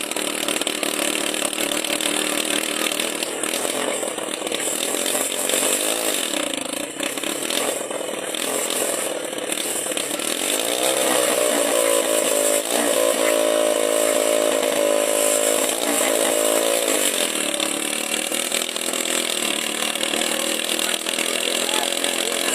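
Small engine running with a raspy note. About ten seconds in it revs up, holds the higher speed for several seconds, then drops back down.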